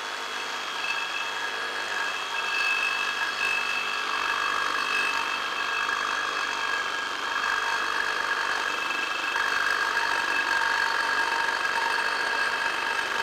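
Reciprocating saw with a Diablo Amped Demo Demon blade cutting steadily through quarter-inch-thick steel pipe: a continuous metal-sawing rasp with a few steady high ringing tones over it.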